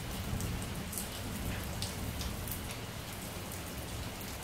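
Heavy rain falling on a tiled terrace: a steady hiss with a deep undertone and scattered sharp splashes of close drops.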